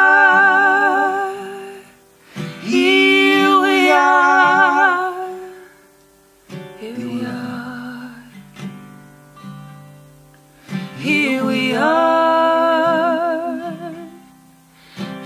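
Live folk music: long sung notes with vibrato over acoustic guitar. The voice drops out for a few seconds in the middle, leaving a quieter instrumental passage, then comes back.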